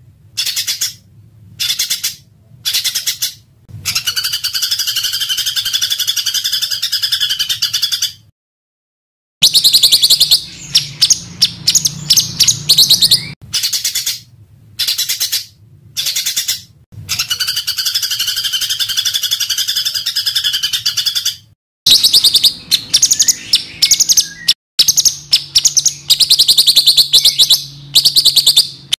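Small songbirds singing fast, harsh, rapid-fire trills of tightly repeated high notes, the dense 'tembakan' song used to train songbirds such as the white-rumped shama. The song stops and starts abruptly several times with short silent gaps.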